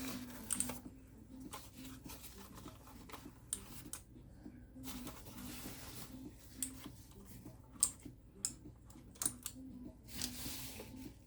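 Handling noises from the Redragon K630 mechanical keyboard and its packaging: scattered irregular clicks and soft rustling, over a faint steady low hum.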